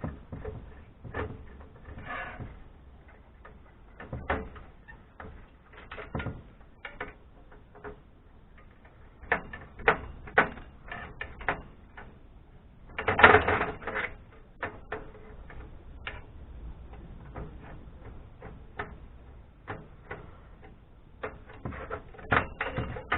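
Irregular clicks and metal knocks of hand tools and parts being worked on an amplifier chassis as screws are taken out of the transformer and the aluminium heatsink. There is a louder clatter of metal about thirteen seconds in.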